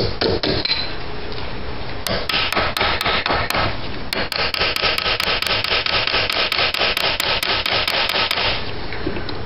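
Rapid metal scraping and rubbing with sharp clicks, from an adjustable wrench worked back and forth on a seized alternator fitting. It starts about two seconds in, pauses briefly, and stops shortly before the end.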